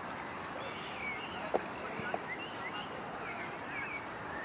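A cricket chirping steadily, short high trills about two to three a second, over open-air background hiss, with birds twittering and a short knock about a second and a half in.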